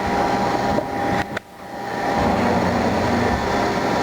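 Haas CNC lathe running with a steady mechanical drone; the noise cuts out sharply a little over a second in and builds back up within about half a second.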